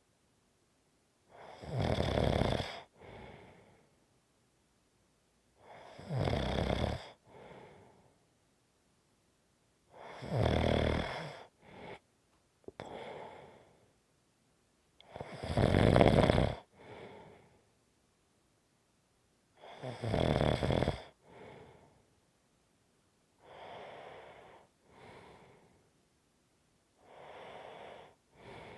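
A person snoring in slow, regular breaths about every four to five seconds, each a loud snore followed by a shorter, softer one. The snores grow to their loudest about halfway through, and the last two are noticeably quieter.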